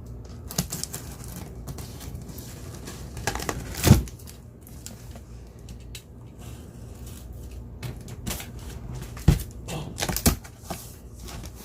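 Cardboard box being opened by hand: packaging crinkling and tearing, with irregular clicks and knocks. The loudest knock comes about four seconds in, and two more sharp ones come near the end.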